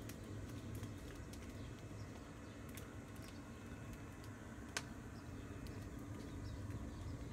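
Quiet outdoor background: a steady low hum with scattered faint clicks, and one sharper click a little before five seconds in.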